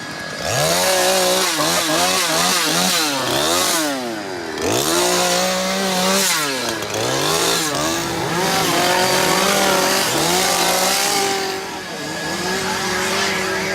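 Chainsaw revved hard again and again, its pitch swooping up and down over and over, then held at a steadier high rev for the last few seconds.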